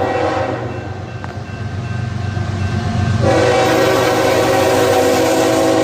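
Five-chime Nathan K5HL train horn sounding on a passing CSX GE locomotive, over a low rumble. The chord sounds fainter at first, then swells to a full, loud blast about three seconds in.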